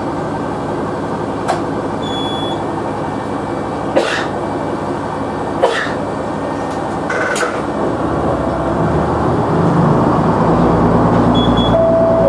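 KiHa 100 diesel railcar's engine idling steadily at a station, with a few sharp clicks and two short high beeps, then the engine building power about ten seconds in as the railcar starts to pull away.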